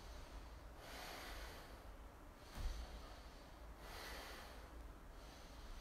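A man's slow, faint breaths while holding a yoga pose: two long breaths about three seconds apart, with a brief soft sound between them.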